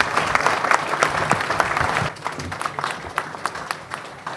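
Audience applauding, dense at first and thinning to scattered claps after about two seconds.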